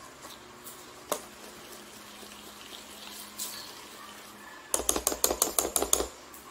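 Wire whisk stirring glutinous rice flour batter in a stainless steel bowl, with faint scraping and occasional clicks, then near the end a rapid clinking of the whisk against the steel bowl, about eight clinks a second for over a second.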